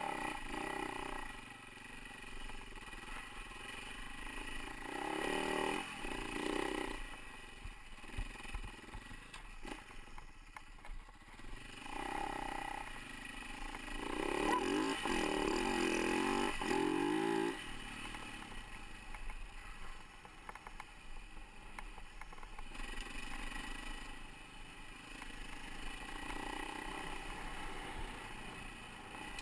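Husaberg FE450 dirt bike's single-cylinder four-stroke engine under way on a trail. The engine note rises and falls as the throttle opens and closes, with a brief drop about a third of the way in and the hardest revving around the middle.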